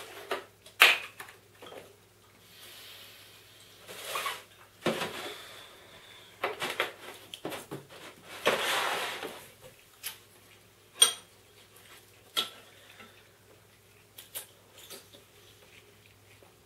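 Spoons clinking and scraping in cereal bowls, with dishes, a glass and a milk jug knocking on a wooden table. There are scattered sharp clicks, one louder one about two thirds of the way through.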